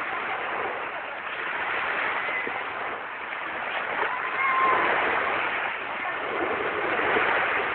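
Small waves breaking and washing up the sand at the shoreline: a steady surf rush that swells louder about halfway through and again near the end.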